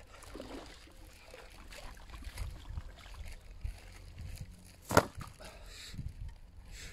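Water sloshing around a person wading in waders, over a steady low rumble, with one sharp knock about five seconds in.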